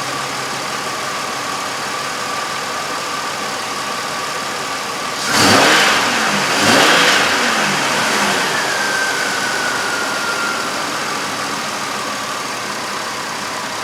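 A 2003 Chevrolet Impala's V6 idling, briefly revved twice about five and a half and seven seconds in and then settling back to idle. The engine is misfiring on cylinder 5 (code P0305).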